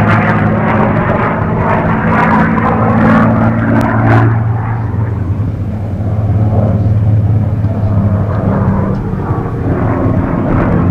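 North American P-51D Mustang's Packard V-1650 Merlin V-12 engine and propeller running steadily as the fighter flies overhead in an aerobatic display, a deep even drone. About four seconds in the sound turns duller and a little quieter as the aircraft draws away, then fills out again near the end.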